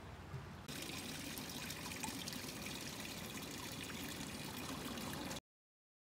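Shallow creek water flowing and rippling over a riffle, an even rushing that cuts off abruptly near the end.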